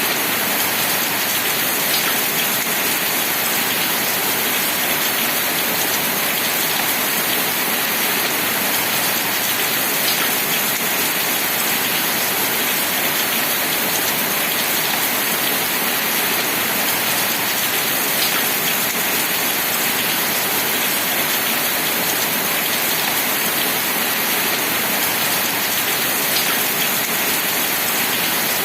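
Steady, heavy rainfall: an even, unbroken hiss of rain with no let-up. A faint tick recurs about every eight seconds.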